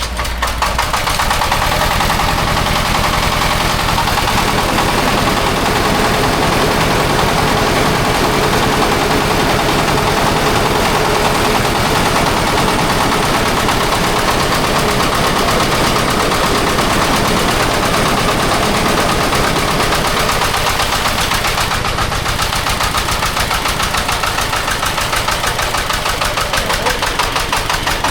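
Engine running loud and steady, with a fast, even clatter.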